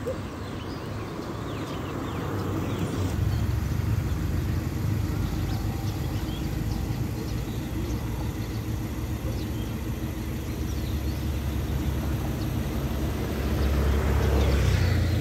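Steady low rumble of a motor vehicle engine running nearby, growing louder near the end.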